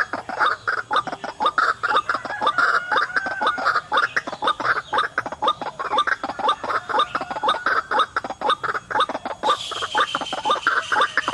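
White-breasted waterhen calling: a fast, unbroken series of short, harsh clucking notes, several a second. Near the end a hiss with a steady high tone joins in.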